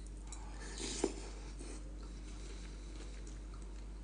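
Soft eating sounds: faint mouth clicks and small knocks, one a little louder about a second in, over a steady low hum.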